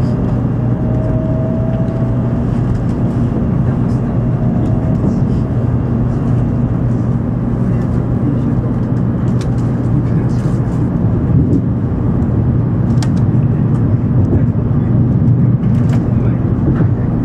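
Running noise of an N700 series Shinkansen heard inside a passenger car: a steady low rumble and hum of the train on the line, with a faint thin whine in the first few seconds, growing slightly louder toward the end.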